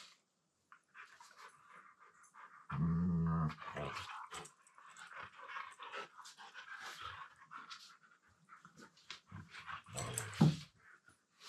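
Two Siberian huskies playing, one giving a low-pitched growling grumble about three seconds in and a shorter, louder one near the end, with panting in between.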